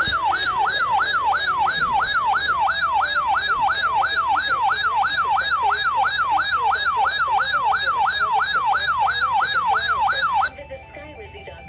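Electronic yelp siren tone, warbling rapidly up and down at about three sweeps a second, which cuts off abruptly after about ten and a half seconds.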